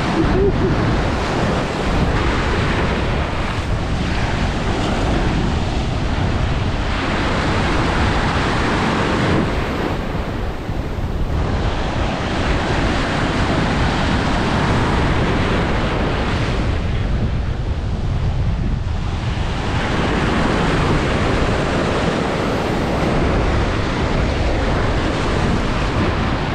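Ocean shore-break waves breaking and washing up over sand and reef rock, the rush of white water swelling and easing as each wave comes in, with wind buffeting the microphone.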